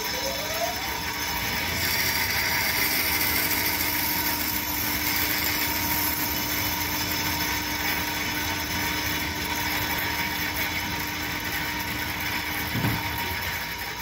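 Band saw running steadily, its blade cutting through a wooden block as the block is fed into it.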